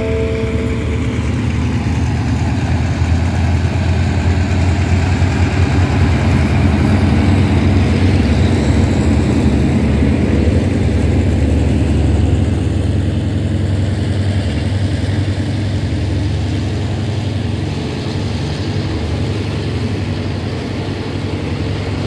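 Hitachi diesel-electric locomotive's engine running under load as the train pulls out and passes, followed by the coaches rolling past on the rails; loudest partway through, easing near the end. A short run of falling chime tones ends about a second in.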